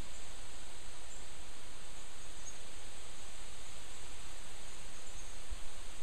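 Wind rustling through the leaves of the trees: a steady, even hiss with a low rumble underneath.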